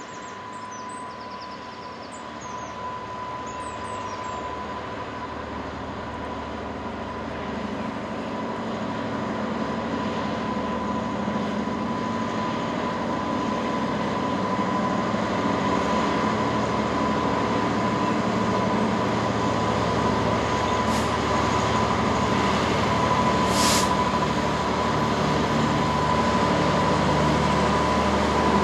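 GB Railfreight Class 66 diesel locomotive, with its two-stroke V12 EMD engine running, hauling a train of hopper wagons and growing steadily louder as it draws near. A thin steady high whine runs over the engine note.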